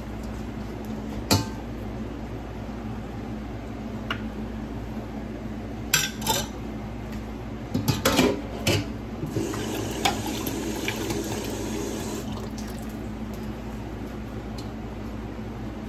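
Steel pots, lids and a metal spoon knocking and clinking on a gas stove: a few sharp knocks, a quick cluster about eight seconds in, then a few seconds of hissing, over a steady low hum.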